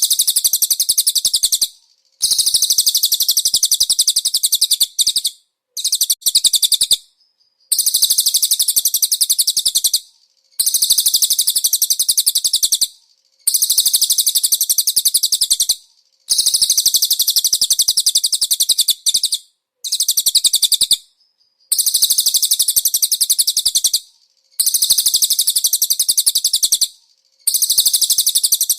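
Konin songbird singing rapid, high-pitched chattering trills, its song laced with cililin phrases. The phrases last about two seconds each and are separated by short pauses, over and over.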